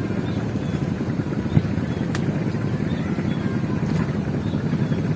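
A steady low rumble, like a motor running, with a single sharp click about a second and a half in.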